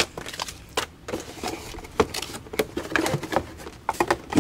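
Paper documentation and cardboard packaging being handled and set aside: irregular rustling with scattered short clicks and knocks.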